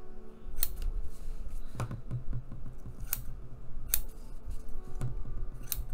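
Scissors cutting through thin cardboard, with about five sharp snips of the blades spread through the cut.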